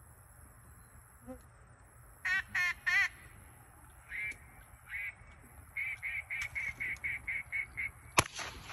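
A duck call blown in quacks: three loud quacks, two more, then a fast run of about ten shorter quacks. A single sharp gunshot follows near the end. This is the call-and-shot a hunt-test gunner uses to draw the retriever's eye to the bird being thrown.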